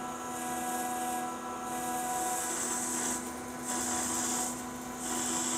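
Metal lathe running with a steady drive hum while the cutting tool cuts into the spinning bar, a high hiss of cutting that comes and goes several times.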